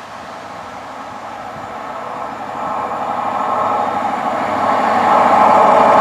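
A British Rail Class 43 InterCity 125 High Speed Train (HST) approaching at speed with its diesel power car leading, its sound growing steadily louder as it nears.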